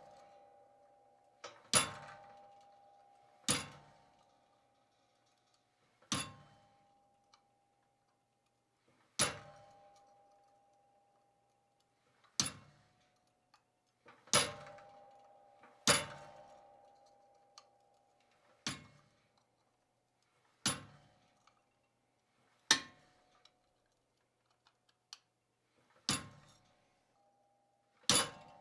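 Single hammer blows on cold steel, struck one at a time every one to three seconds, each leaving a brief metallic ring.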